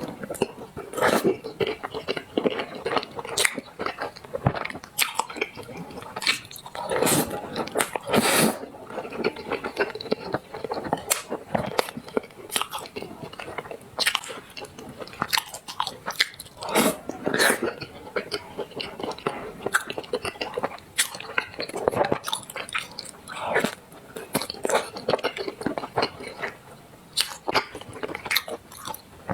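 Close-miked eating sounds of someone eating black sesame paste: wet mouth noises and irregular sharp clicks of chewing and swallowing.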